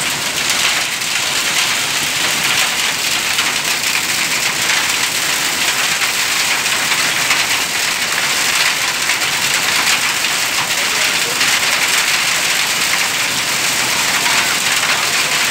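Hailstorm pelting a lawn, a road and tree leaves: a dense, steady hiss of countless small impacts.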